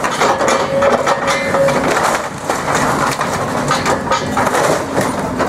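Timber wall framing and weatherboards splintering and crunching as a Hyundai 180LC-7 excavator's demolition grapple tears into a house, with many sharp cracks. The excavator's diesel engine runs underneath.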